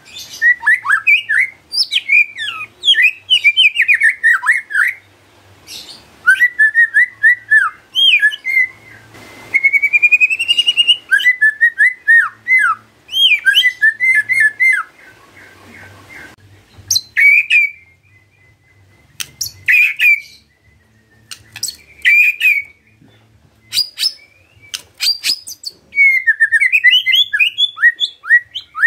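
White-rumped shama singing fast, varied phrases of whistles and chattering notes. Past the middle it drops to sparse single notes for several seconds, then the fast song picks up again near the end.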